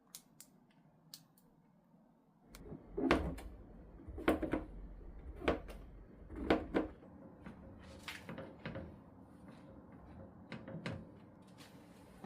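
A string of knocks and clatters of things being handled, a few light clicks first, then heavier knocks over a low rumble from about two and a half seconds in, easing to lighter clicks after about seven seconds.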